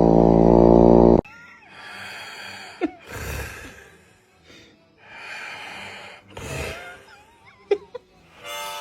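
A loud, steady buzzing tone for about a second that cuts off abruptly, then snoring: wheezy breaths in and out, a second or so apart, with a few squeaky whistling notes.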